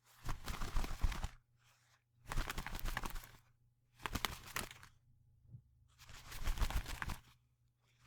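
Small bird's wings flapping in four bursts of rapid fluttering, each about a second long, with short pauses between them.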